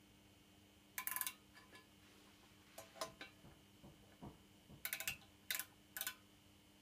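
Faint, short bursts of sharp clicks from an outside micrometer's ratchet thimble being turned to close its anvils on the lathe bed's cast-iron way, coming in several bursts about a second apart, over a faint steady hum.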